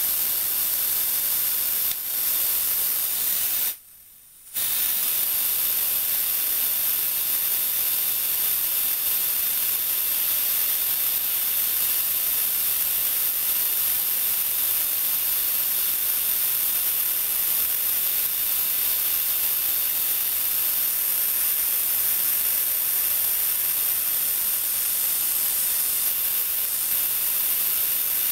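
Compressed air hissing steadily as it is let out of the compressor's tank to drop the pressure. The hiss cuts out for under a second about four seconds in, then resumes.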